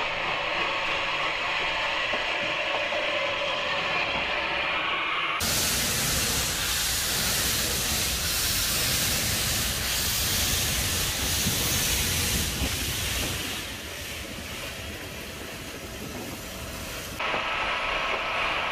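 Steam locomotive 34092 City of Wells, a Bulleid West Country class Pacific, standing with steam hissing from it. About five seconds in, a much louder, full-range rush of escaping steam starts suddenly and lasts several seconds before dropping away, and the sound changes abruptly again near the end.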